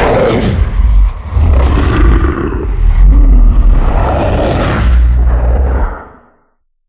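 Tyrannosaurus roar sound effect: a long, deep growling roar with heavy low rumble, briefly dipping about a second in, then fading out near the end.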